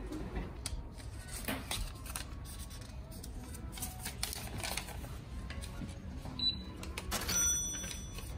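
Self-checkout kiosk beeping: a short high electronic beep, then a brighter chime of several tones a second later, among scattered clicks and knocks.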